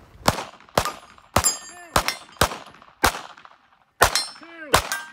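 Pistol shots fired in quick succession at steel targets, eight sharp cracks about half a second apart with a short pause before the last two. Hit steel plates ring and clang after several of the shots, with tones that waver in pitch.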